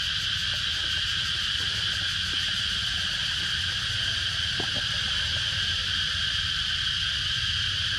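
A steady chorus of insects: a continuous high buzz that does not change, over a low steady rumble.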